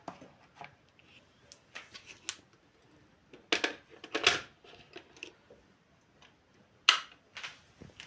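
Handling clicks and knocks of a Polaris PWK 1729CA electric kettle and its plastic power base as they are moved and set down, with the stainless kettle put onto the base. The loudest knocks come about three and a half to four and a half seconds in and once more, sharply, just before seven seconds.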